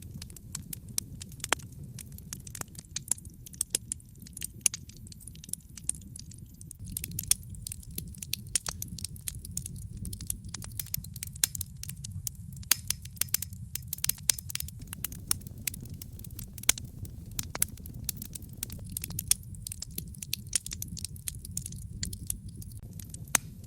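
Fire burning in a fireplace, crackling: irregular sharp snaps and pops, a few louder than the rest, over a steady low rumble of the flames.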